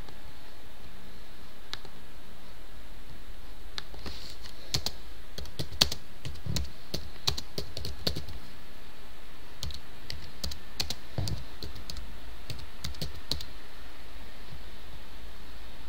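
Typing on a computer keyboard in two bursts of key clicks, the first about four seconds in and the second about ten seconds in, over a steady background hiss.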